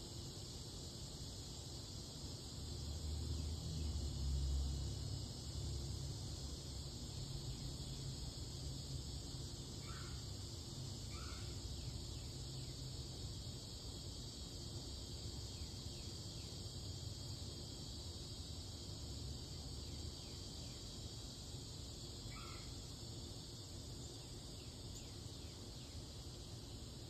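Steady summer insect chorus, with a bird calling briefly three times. A low rumble swells for a couple of seconds a few seconds in.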